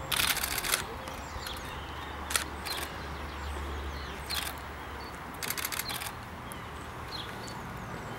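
Camera shutter clicking in rapid bursts: a quick run of shots at the start, a few single clicks, then another quick run about five and a half seconds in.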